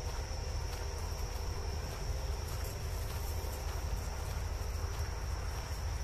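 Insects trilling steadily at a high, unchanging pitch, with a low rumble underneath.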